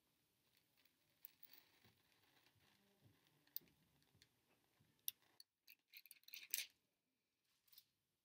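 Rough edges of two graham crackers grinding sideways past each other: a faint scratchy crunching with small crackles and clicks, loudest around six and a half seconds in, as the crackers catch with friction against each other.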